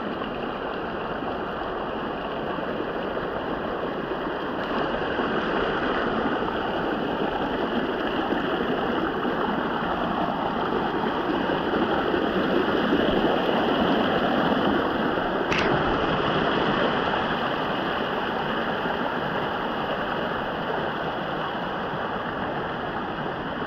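Hot-spring water rushing and splashing down a rock channel in a small cascade: a steady rush that grows louder in the middle and eases again near the end. One short click a little past halfway.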